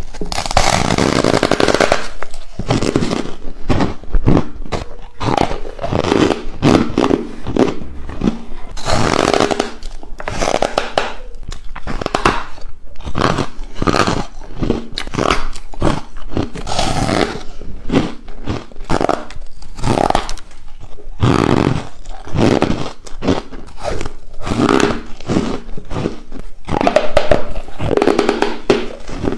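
Close-miked biting and crunching of a matcha-powder-coated ice block, one bite after another with chewing in between.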